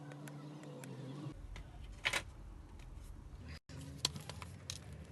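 A few sharp clicks over a low steady hum, the loudest click about two seconds in.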